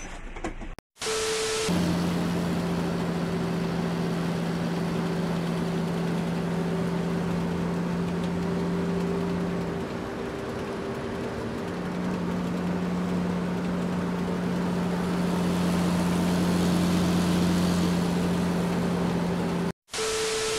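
A short burst of TV-static hiss, then a mini excavator's small diesel engine running steadily with a low, even hum over a noisy background, its lower tone dropping out briefly about halfway through; a second static burst comes near the end.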